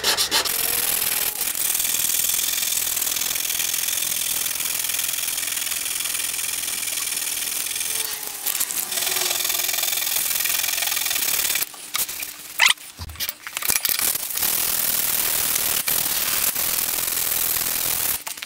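240-grit sandpaper rubbed by hand over a metal spatula blade to clean it up: a steady scratchy rasp. About twelve seconds in it breaks off for a couple of seconds with a few knocks, then the sanding resumes.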